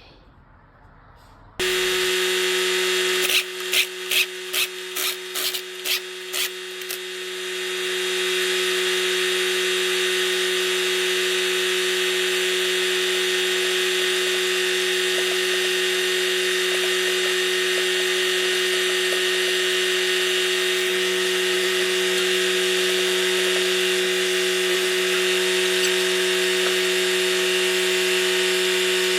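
A motor-driven machine starts abruptly about a second and a half in and runs steadily with a humming tone. Between about three and seven seconds it is broken by some eight short, loud bursts, about two a second.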